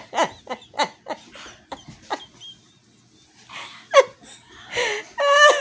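Laughter: a quick run of short laughs in the first second, then softer breathy laughing, with a sharp burst about four seconds in and a longer voiced laugh near the end.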